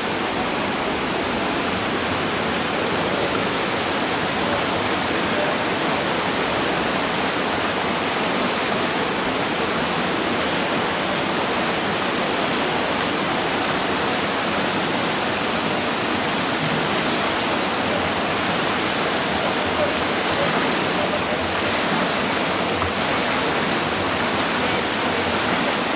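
Steady rushing, water-like noise of an indoor competition swimming pool hall, with no distinct splashes or events standing out.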